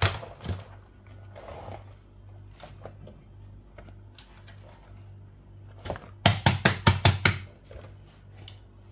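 A metal cake pan being turned upside down onto a wire cooling rack on a wooden board: scattered light clicks and knocks of metal on metal and wood, then a quick run of about eight sharp metallic taps about six seconds in, the loudest part.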